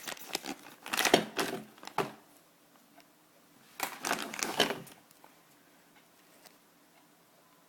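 Toy packaging being handled and opened by hand: crinkling, crackling and small plastic clicks in two bursts, one at the start and one about four seconds in, with only faint ticks after.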